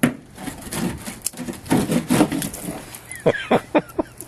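Ice being struck off a pickup truck's body: a sharp whack right at the start, then a few more scattered knocks near the end.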